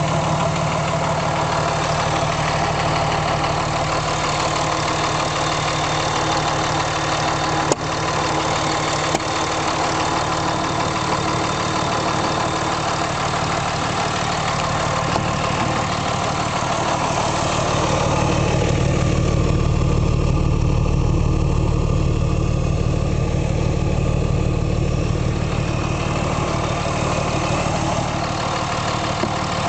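2005 Dodge Ram's 5.9-litre Cummins turbo-diesel idling steadily. For several seconds past the middle the sound turns deeper and duller. The owner is questioning whether the noises it makes near the rear of the oil pan and near the intake are normal.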